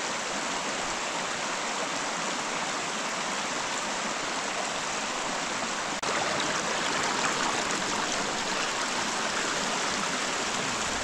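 Small mountain brook splashing and gurgling over rocks in a steady rush. After a brief break about halfway through it is a little louder, heard from close over the running water.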